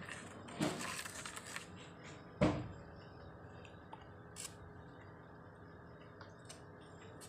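A plastic spoon scraping and clinking in a small plastic tub as custard powder is stirred into hot water, then a single sharp knock of plastic about two and a half seconds in, followed by a few faint clicks.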